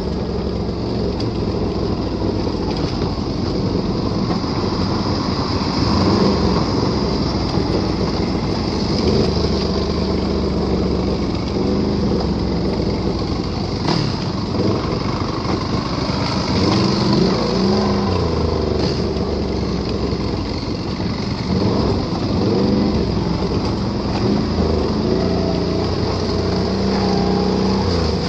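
ATV engine running under way off-road, its pitch rising and falling again and again as the throttle is opened and eased.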